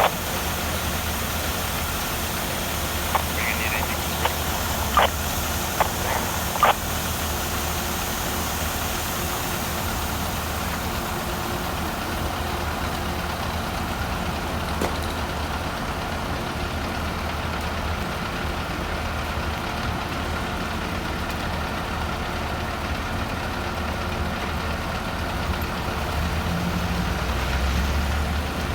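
Fire apparatus engines running at idle: a steady low diesel hum, with a few sharp clicks or knocks in the first several seconds and the rumble swelling slightly near the end.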